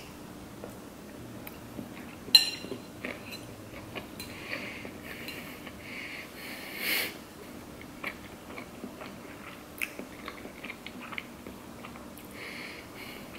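Close-up chewing of a sushi roll: soft wet mouth clicks and squelches throughout. One sharp click about two seconds in is the loudest moment, and a brief breathy rush comes near the middle.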